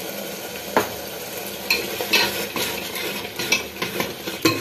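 Steel spoon stirring and scraping a thick masala in an aluminium pressure cooker, with scattered clicks of the spoon against the pot over a steady sizzle of the masala frying in oil.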